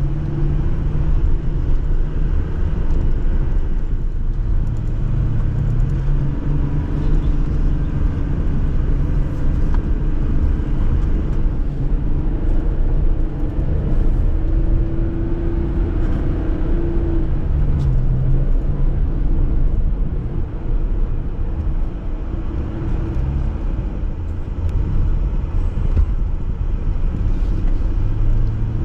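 Jeep driving off-road: a steady low engine rumble whose note drifts slightly up and down with the throttle.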